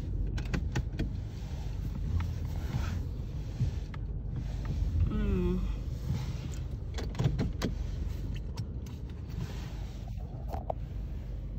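Steady low rumble of a car idling, heard from inside the cabin, with scattered clicks and knocks. A brief wavering tone comes about five seconds in.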